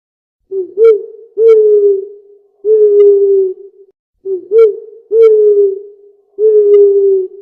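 A bird's low hooting call: a phrase of two short notes followed by two longer held notes, given twice.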